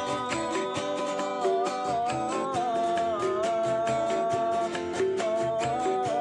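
Music: plucked-string accompaniment over a steady beat, with a sliding, bending melody line held above it.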